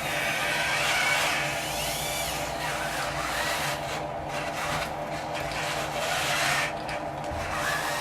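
Scale RC construction machine at work: small electric motors whining up and down in pitch over a steady scraping and grinding of soil.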